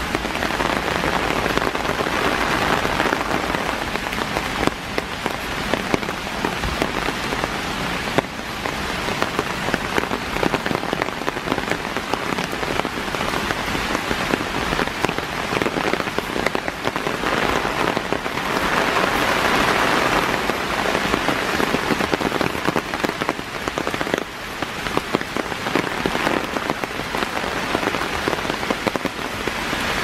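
Steady heavy rain falling through forest trees, a dense hiss of countless drops that swells louder a couple of seconds in and again about twenty seconds in.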